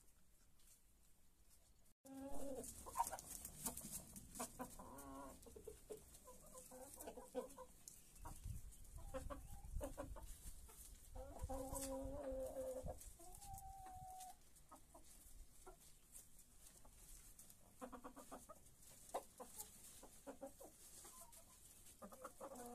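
Domestic hens clucking and calling in short bursts as they feed, starting about two seconds in, with one short held note a little past halfway.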